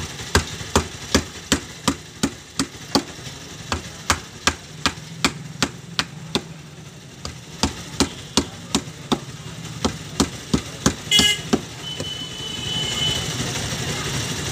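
A seenghala catfish being cut on a large curved fixed blade (boti): sharp knocks at about two to three a second, in runs with short pauses, stopping about eleven seconds in. A steady low hum runs behind.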